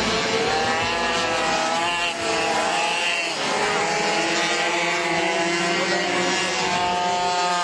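Several racing minibikes (pocket bikes) running on the track, their small engines buzzing at high revs. The pitches of the engines overlap and rise and fall as they rev and pass.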